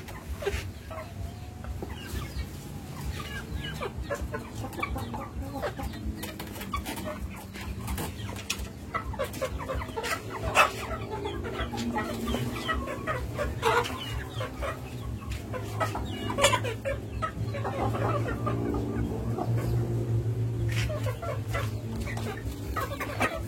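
Several chickens clucking with short calls scattered throughout, over a steady low hum.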